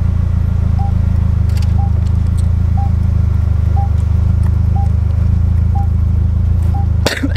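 Car engine idling with a steady low rumble, with a faint warning beep about once a second. A brief clatter comes near the end, then the rumble cuts off.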